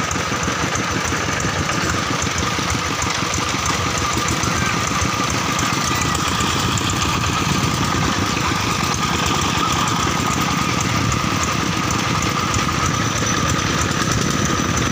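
Single-cylinder diesel engine of a two-wheel tractor running steadily, chugging without a break.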